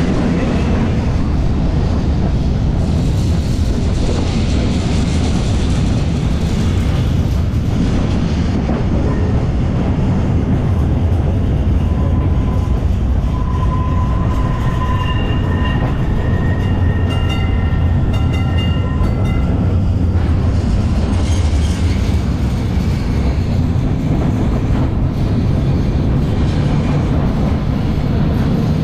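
Tram No. 47, a 1906 double-decker, gives a steady low rumble as its wheels run along the rails. For several seconds around the middle, high-pitched tones come and go above the rumble.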